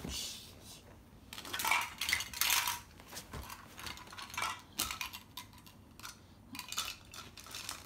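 Plastic toy food pieces clattering and clicking against each other and a plastic basket as they are rummaged through and moved around, in a string of irregular light knocks.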